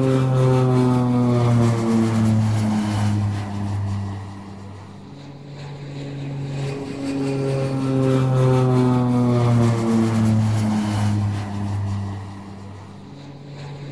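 An engine sound effect passing by twice, its pitch falling as it goes past, swelling and fading with each pass.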